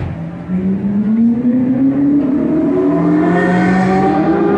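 Sports car engine accelerating hard as the car pulls away, its pitch rising steadily for about four seconds as the driver gives it a hit.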